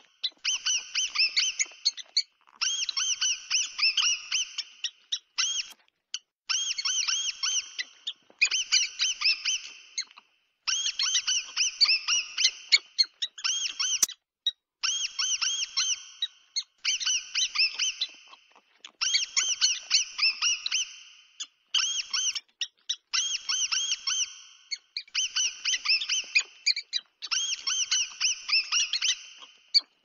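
Mouse squeaking: rapid high-pitched chirps in runs of one to three seconds, repeating with short gaps between them.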